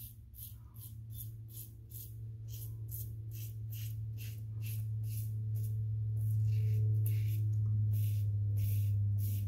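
Rockwell 6S stainless safety razor with an Astra Platinum double-edge blade scraping through lathered stubble on the chin and neck in short strokes, about two or three a second. Underneath runs soft background music with a steady low drone that grows louder about halfway through.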